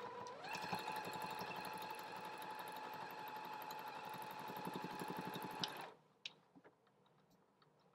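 Janome DC4030p computerized sewing machine sewing a straight stitch at reduced speed into stretchy fabric. The motor whirs up with a short rising whine, runs steadily with a fast even needle beat for about five seconds, then stops abruptly. A few light clicks follow.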